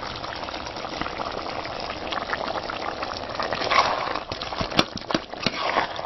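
A pot of vegetable soup with meat bubbling as it cooks, stirred with a metal spoon; the spoon knocks against the pot a few times in the second half.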